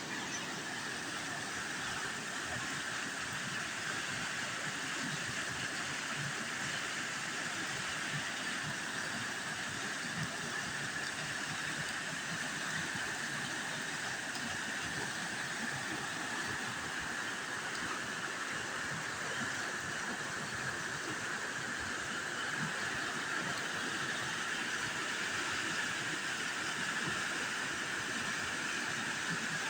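Water pouring over a small man-made waterfall on a creek: a steady, even rushing noise that holds unchanged throughout.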